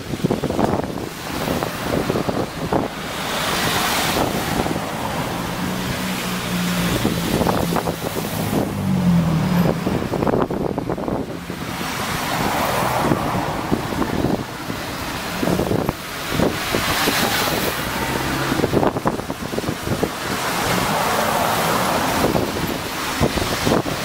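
Cars driving past one after another, each swelling and fading with tyre and engine noise, with some wind on the microphone.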